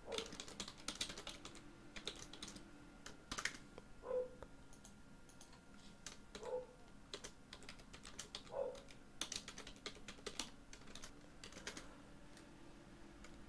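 Computer keyboard typing: faint, irregular key clicks in scattered bursts as short text labels are typed in.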